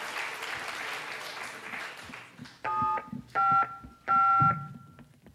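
Applause dies away, then three telephone keypad dialing tones, each a short two-note beep, the third one longest.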